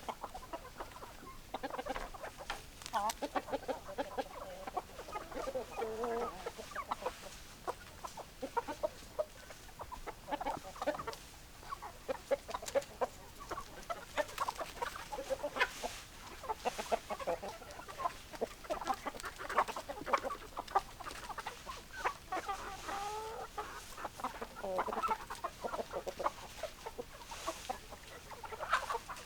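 A flock of hens clucking: many short, overlapping clucks from several birds, kept up without a break.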